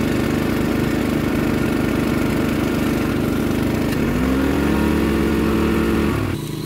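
An engine running steadily. About four seconds in, a second engine note comes in, rising in pitch and then holding. Near the end the sound drops off suddenly to a quieter steady running.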